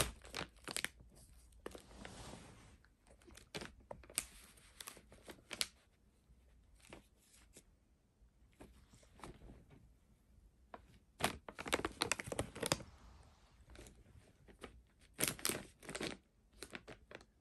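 Plastic treat pouch crinkling and rustling as a cat paws and bites at it, in irregular bursts with quieter gaps between.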